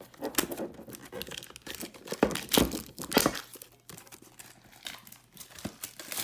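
Plastic wrapping of a trading card pack being torn open and crinkled, with a few sharp loud rips in the first three and a half seconds, then quieter handling rustles.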